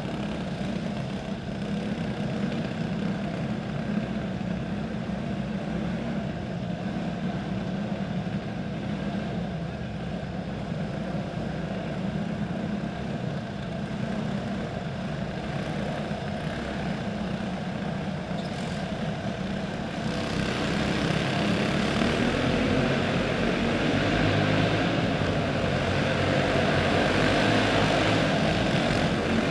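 Several dirt-track racing karts with small single-cylinder four-stroke clone engines running laps together. The engine noise is steady and grows louder from about two-thirds of the way in.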